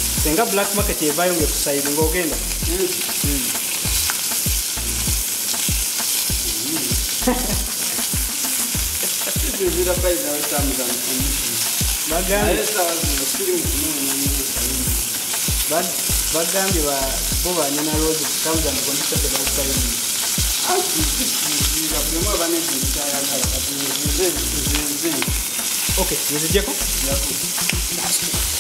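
Chicken pieces sizzling steadily in hot oil in a frying pan as they are turned with metal tongs.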